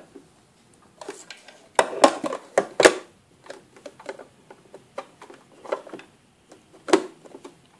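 Irregular clicks, knocks and light rustles of hands handling a plastic-bodied domestic sewing machine while threading it; the motor is not running. The loudest knocks come about two to three seconds in, and another near the end.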